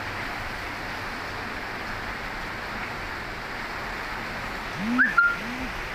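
Heavy rain falling steadily as an even hiss. About five seconds in, a brief, louder pitched sound rises and falls twice, with a sharp click between.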